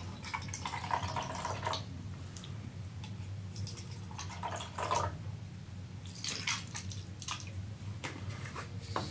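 Flavored water poured from a plastic bottle into a clear plastic cup, splashing, in two main pours: one lasting about a second and a half near the start, and another shorter one a little before the middle.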